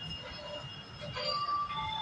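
Kaveri Express passenger train rolling on the rails with its wheels squealing in high steady tones over a low rumble, a few short tones at different pitches joining in the second second.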